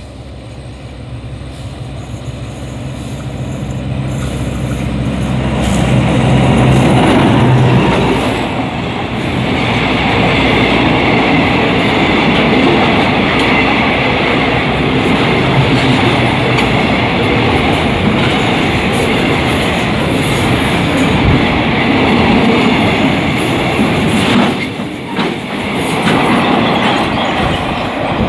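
Alsthom ADD diesel-electric locomotive approaching and passing close by, its engine growing steadily louder over the first seven seconds. A long string of tank wagons follows, rolling past with a steady noise of wheels on the rails.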